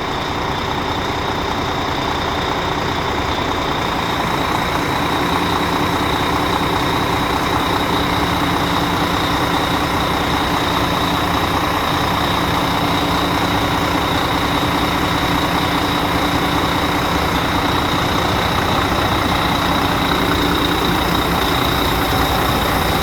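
Volvo FH12 truck's 12-litre inline-six diesel idling steadily on a first start after standing overnight, running well and evenly, with a steady high whine over the engine note.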